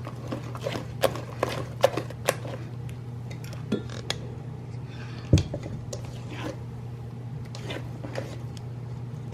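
Kitchen utensils and cookware clinking and knocking, a string of sharp clicks with one louder knock about five seconds in, over a steady low hum.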